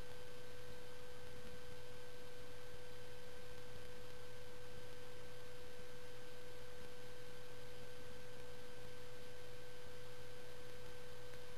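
A steady hum: one unchanging mid-pitched tone with a fainter higher overtone above a low hum and faint hiss.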